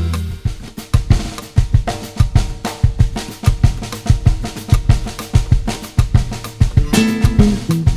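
Background music: a drum-kit groove with bass drum, snare and cymbal, guitar-led music on either side.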